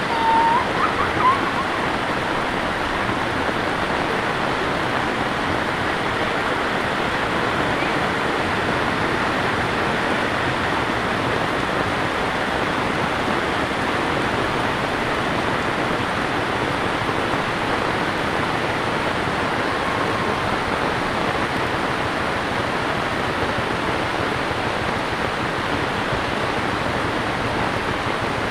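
Heavy rain pouring steadily onto a paved village road, an even, unbroken rushing hiss.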